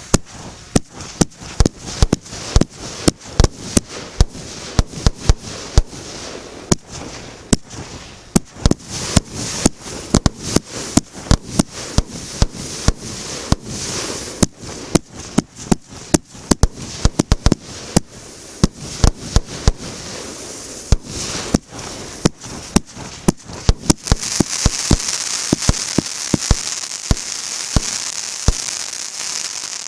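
Megapir "Fiery Confetti" MB150 fireworks cake firing: a fast string of sharp shots and bursts, several a second, with a high hiss that thickens over the last six seconds or so.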